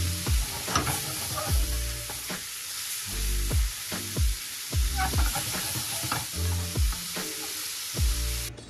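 Food sizzling as it is stir-fried in a pan, with a few scrapes of the spatula, over background music with a steady beat. The sizzle cuts off suddenly near the end.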